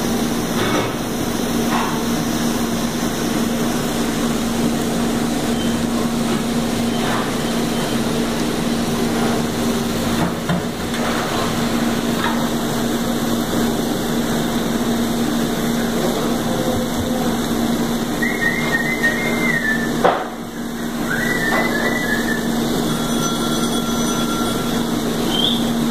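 Skirt steak and onions sizzling in a pan over a gas burner, a steady hiss with a low hum underneath. A sharp knock comes about twenty seconds in, and a few short high chirps come near it.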